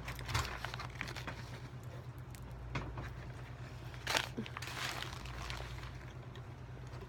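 Crinkling and rustling of fast-food packaging, with a few sharper rustles about a third of a second, nearly three seconds and just over four seconds in, over a steady low hum.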